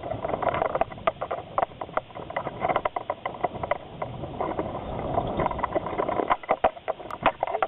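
A four-dog sled dog team running and pulling the musher's rig: a continuous rolling rattle with many irregular clicks and knocks.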